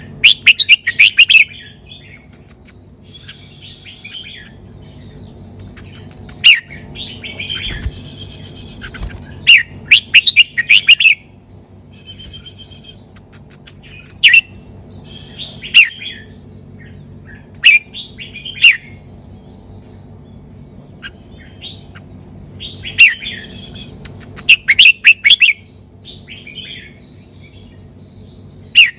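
Red-whiskered bulbul singing: loud bursts of short, chirpy whistled phrases every few seconds, with quieter pauses between, over a faint steady low hum.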